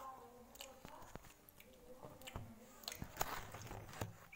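A person biting and chewing food, heard as a run of short, irregular clicks.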